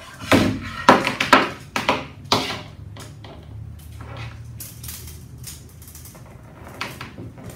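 A thin power cable and a flexible tape measure being pulled straight and shifted between the hands, with several sharp rustles and light clatters in the first two and a half seconds and fainter ones later, over a low steady hum.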